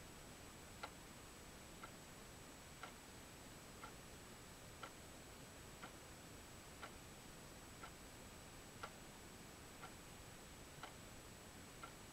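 A clock ticking faintly and evenly, about once a second, over a low background hiss.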